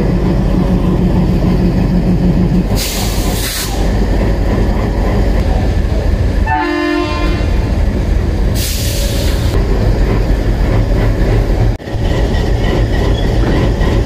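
WDM-3A diesel locomotive idling with a steady low rumble. It sounds its horn in one short blast, about a second long, roughly six and a half seconds in. There are two short hisses about three and nine seconds in.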